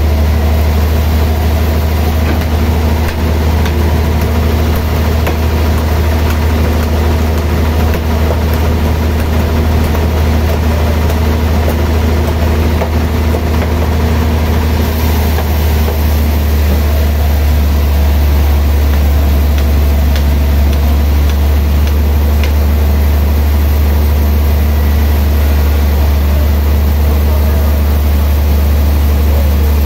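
Large band sawmill's drive running steadily, a constant low drone with no cutting load on the blade.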